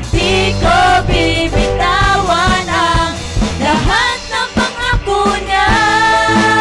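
Worship song: a voice singing over a band with drums keeping a beat, holding one long note near the end.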